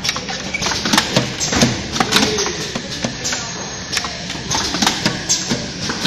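Automatic cartoning machine running: irregular rapid clicks and clattering knocks from its mechanisms and cartons over a steady low hum.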